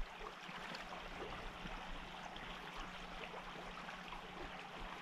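Shallow stream running over a rocky riffle: a steady, even rush of water.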